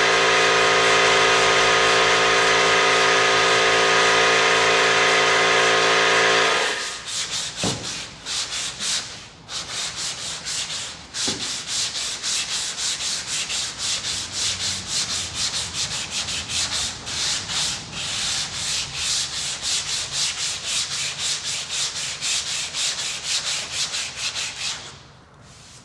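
A power tool runs steadily and cuts off about six and a half seconds in. Then comes hand sanding on car body panels: quick, even rasping back-and-forth strokes, about two to three a second, that stop near the end.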